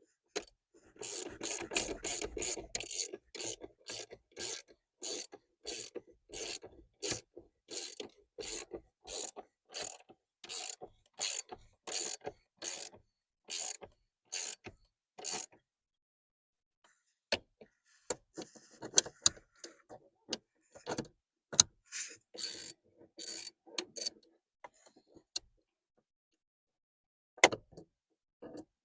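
Socket ratchet wrench clicking in quick, even strokes, about two a second, as a steering column bolt is run in. It stops about fifteen seconds in, then comes back in shorter, irregular spells.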